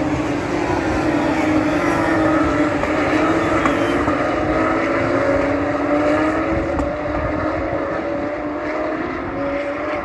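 Several Porsche 911 GT3 Cup race cars' flat-six engines at racing speed, passing and pulling away. Their pitch dips and then climbs as they accelerate, and the sound gradually fades toward the end.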